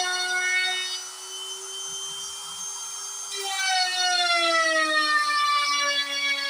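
DIY CNC router running as it carves wood, its motors giving a steady whine that slides slowly lower in pitch about halfway through.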